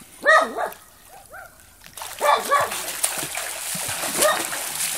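A dog barking several times in short, sharp calls, with a swimmer splashing through the water from about two seconds in.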